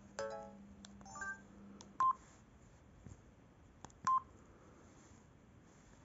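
Samsung SGH-E250 mobile phone's keypad and menu tones while its menus are navigated. Two short clusters of tones come near the start, then two sharp single beeps about two seconds apart, with a few faint key clicks between them.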